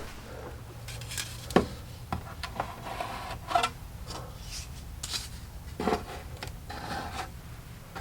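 Workshop handling noises: wooden pieces knocking and clacking now and then, with rubbing between, over a steady low hum. The sharpest knocks come about a second and a half in and near six seconds.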